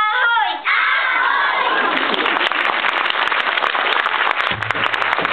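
Audience applause and cheering breaking out about half a second in as children's singing ends, with sharp individual claps from about two seconds in.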